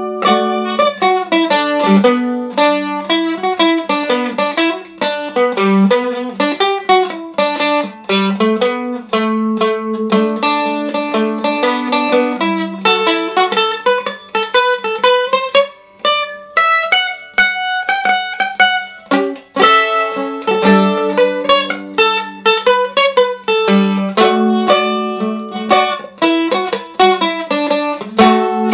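1907 Gibson A4 mandolin being played solo, a run of quick plucked notes over a repeated low open-string note, continuous throughout.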